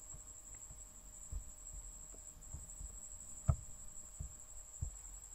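Faint background hum from a desk microphone with a steady high-pitched whine, broken by a few soft low thumps and one sharp click about three and a half seconds in, typical of a computer mouse being clicked and handled.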